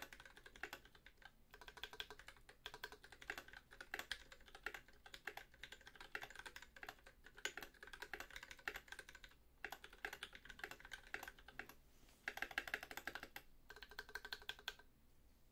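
Typing on an Idobao ID80 mechanical keyboard with lubed Everglide Oreo switches under Cherry top housings and NK_ x Tai-Hao cubic-profile keycaps: a fast, steady run of key clacks with a few short pauses. It stops just before the end.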